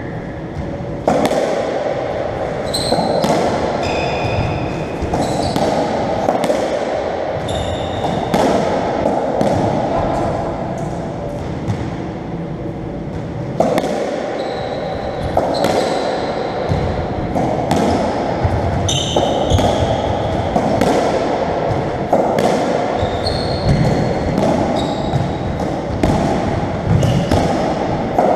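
Racketball rally on a squash court: the ball cracking off rackets and walls every second or so, each hit echoing round the court, with shoes squeaking on the wooden floor now and then. The hits thin out briefly about halfway through.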